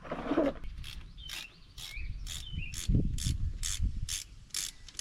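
Socket ratchet clicking in short even strokes, about two a second, as a bolt on a Jeep's thermostat housing is undone.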